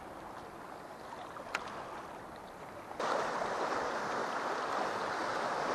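Sea waves washing against a rocky shore, a steady rush that turns suddenly louder about halfway through. A single short tick comes before the jump.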